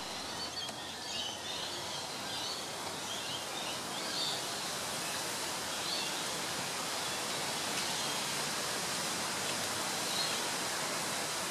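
Steady outdoor background hiss with faint, scattered small-bird chirps, most of them in the first five seconds.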